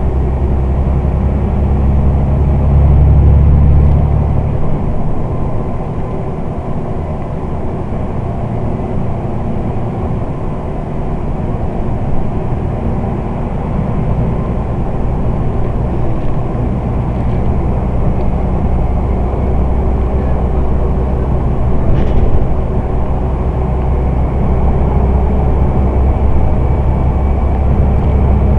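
Scania Omnidekka double-decker bus engine running under way, a deep drone that is loudest a few seconds in, eases off, then builds again through the second half.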